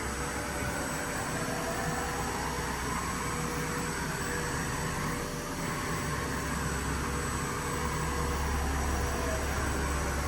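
Hurco VMX-42Di CNC vertical machining center running under power: a steady hum and hiss with a motor whine that rises and falls in pitch.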